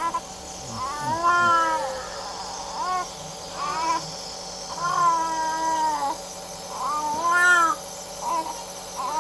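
Baby crying in about seven wails, each rising and then falling in pitch, some short and some over a second long, over a steady faint hum and hiss.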